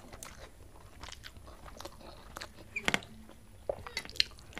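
A person chewing a mouthful of rice and soya chunk curry, with scattered short wet mouth clicks and smacks; the sharpest come about three seconds in and again near the end.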